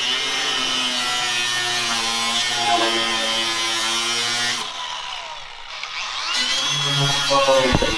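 Angle grinder with a cutoff wheel cutting through a metal skid plate, running steadily at a high whine. About two-thirds through it eases off briefly, then spins back up with a rising whine and bites into the metal again.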